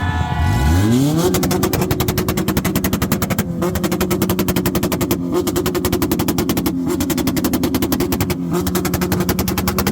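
A tuned car engine revved up about a second in and held at high revs, its exhaust crackling in a rapid, even machine-gun-like stream of pops and bangs, with short breaks about every second and a half.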